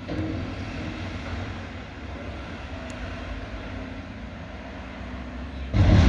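Heavy diesel engine of a Mack front-loader garbage truck running at raised revs, a steady drone, while its hydraulic arms lift a dumpster over the cab to empty it. A sudden, much louder noise comes near the end.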